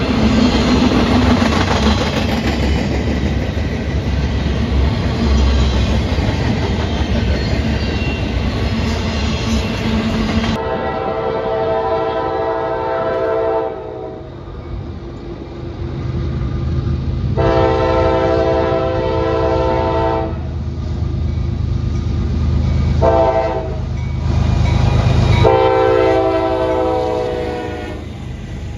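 A train rolling past with a steady rumble and clatter of wheels on rail. After an abrupt change, a locomotive horn sounds four blasts, long, long, short, long, the standard signal for a grade crossing, over the low rumble of the train.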